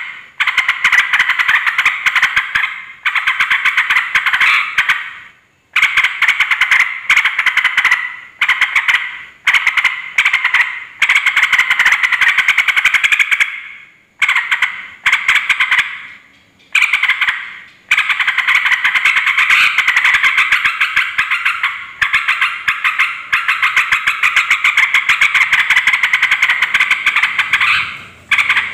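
Yellow-vented bulbul giving a loud, rowdy, rapid chattering song in bouts of a few seconds broken by short pauses, with one long unbroken bout near the end. It is the agitated song used as a lure to provoke other bulbuls into answering.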